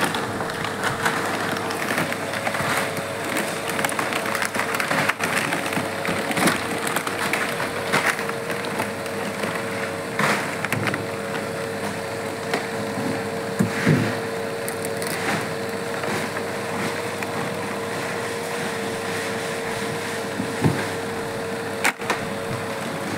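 Steady machine hum with a constant droning tone, broken by irregular clicks and short rustles.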